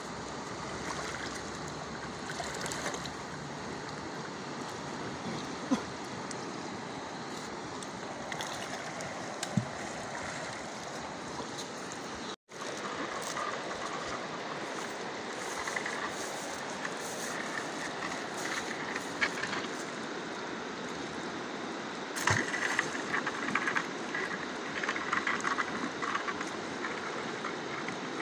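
Fast-flowing river rushing steadily, cut off briefly a little before halfway. Scattered crackling noises come in over the last few seconds.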